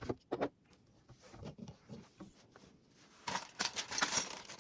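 Handling noises: a few sharp clicks at the start, faint ticks, then a burst of rustling and scraping about three seconds in.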